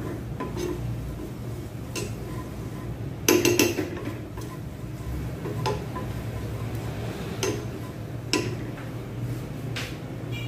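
A spoon knocking and scraping against a nonstick frying pan as white granules are stirred: several separate clicks and knocks, the loudest a short cluster about a third of the way in, over a steady low hum.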